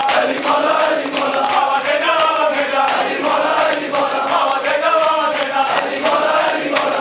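A crowd of men chanting a noha together in repeated rising and falling phrases, with many sharp slaps of hands striking chests (matam) sounding through the chant.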